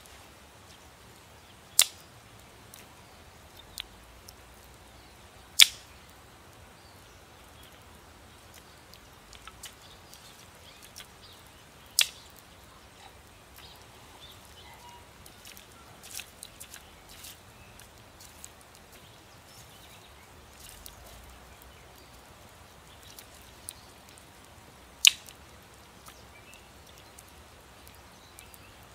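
Sharp cracks of wood at a small campfire being rekindled with sticks: four loud single snaps spread out, with fainter small ticks and pops between.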